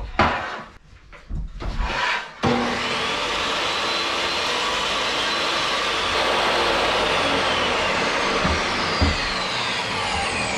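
A few knocks of a board being handled, then a jobsite table saw is switched on about two seconds in and runs with a steady whine while a board is fed through the blade. Near the end it is switched off and winds down with a falling whine.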